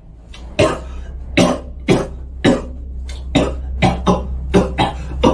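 A person coughing in a steady rhythm, about two sharp coughs a second, like a beat, over a steady low hum.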